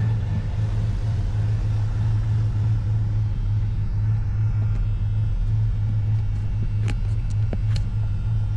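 1990 Dodge Ram 150's throttle-body-injected engine idling steadily with a low, even rumble. It runs a little off, which the owner thinks is because the injectors and emission system are still contaminated with fuel from leaking injector seals.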